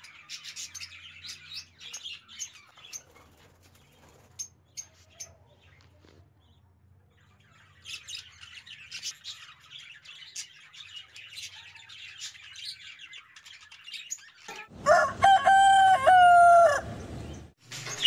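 Budgerigars chirping and twittering, with a lull of a few seconds in the middle. Near the end a loud, drawn-out pitched call lasts about two seconds, in two parts.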